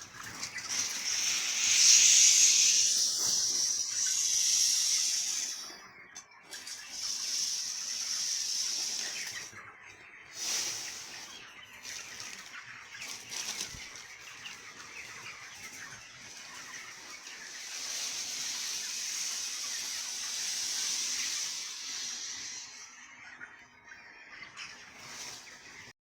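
Broiler chickens in a poultry house over a steady high hiss that swells and fades, loudest about two seconds in.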